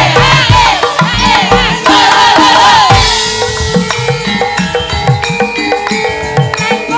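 Javanese gamelan music with kendang drum strokes. For about the first three seconds, several voices shout out in rhythm over it. After that the metallophones carry a stepped melody.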